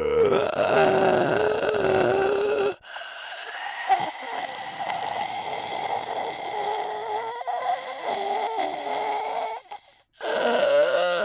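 A man making long, wavering vocal snoring noises, an exaggerated comic imitation of an old man snoring. It breaks off abruptly about three seconds in, and there is a brief silent gap near the end.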